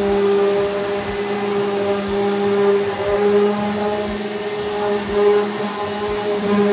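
Handheld electric random orbital sander running with a steady motor hum, sanding cured carbon-fibre body filler (bog) on a steel bonnet.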